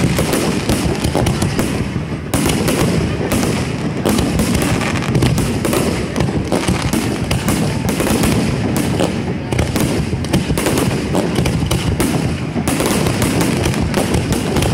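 Fireworks display: a dense, unbroken run of rapid, overlapping bangs and crackles.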